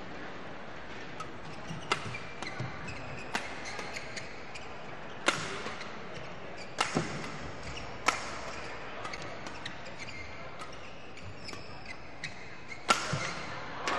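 Badminton rally in a sports hall: rackets strike a feather shuttlecock with sharp, short smacks every one to two seconds over a steady hall background. The loudest hit comes near the end.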